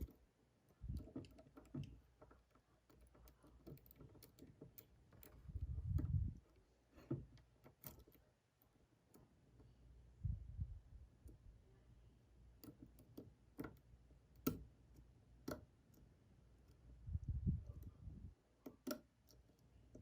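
Faint clicks and ticks of a euro cylinder lock being picked, a pick setting pins and spools against tension, with a few low thumps of the lock being handled.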